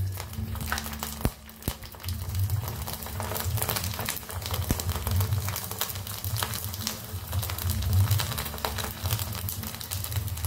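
Sabudana papad frying in hot oil: a dense, steady sizzling crackle as the sago pearls puff up, over a low hum.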